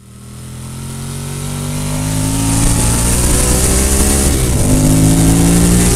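Sport motorcycle's engine heard from on board, accelerating under load with wind rush. It swells up over the first two seconds, its pitch climbs steadily, drops briefly a little past halfway as it shifts up a gear, then climbs again.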